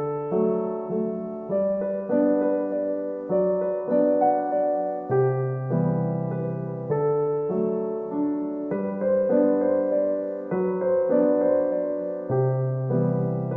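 Gentle solo piano background music, slow chords and melody notes changing about once a second.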